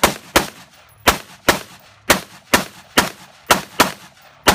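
AR-style rifle firing about ten shots, mostly in quick pairs, a double tap on each target in turn.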